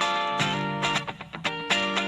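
Rock music: a strummed guitar playing choppy chords in a start-stop rhythm, with no singing.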